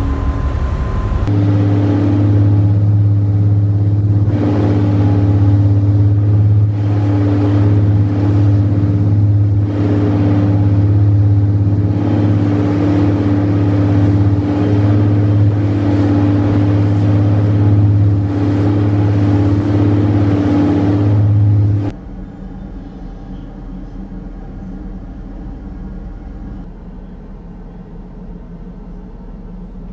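A ferry's engines drone at a steady low pitch, with rushing wind and sea noise over the top. About 22 seconds in, the sound drops suddenly to a quieter, muffled engine hum as heard inside a passenger cabin.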